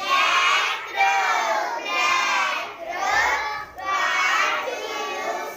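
A class of young children chanting a rhyme together, loudly and in unison, in phrases about a second long.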